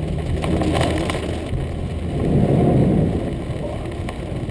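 Rain on a car's body and windscreen with tyres running through standing water. About two seconds in, a louder rush of water spray against the car lasts about a second.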